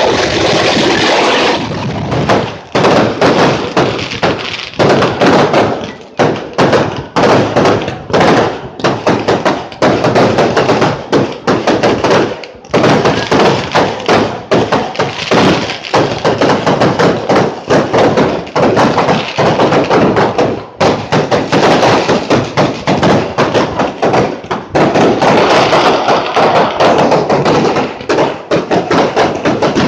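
Fireworks display: aerial shells bursting in a dense, rapid barrage of loud bangs and crackles. The bursts run together into continuous crackling near the start and again from about 25 seconds in.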